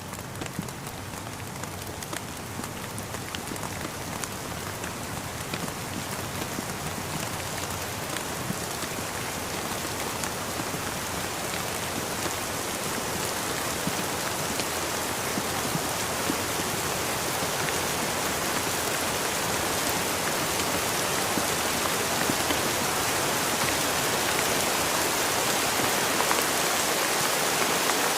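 Steady rain falling, with many individual raindrops tapping on surfaces, growing gradually louder.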